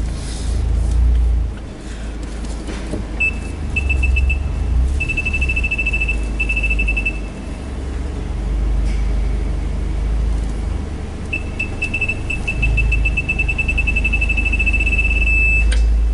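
Parking-distance sensor beeping in two runs of short, high-pitched beeps that quicken until they almost merge, the sign of the car closing in on an obstacle. Underneath is the low rumble of the Mazda MX-5's four-cylinder engine at crawling speed.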